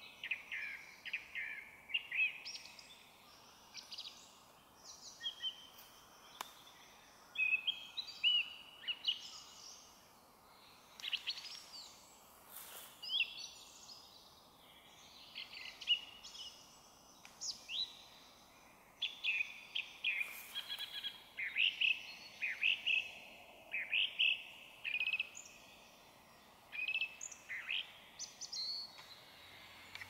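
Song thrush singing amid the songs of other small birds: short phrases follow one another with barely a pause.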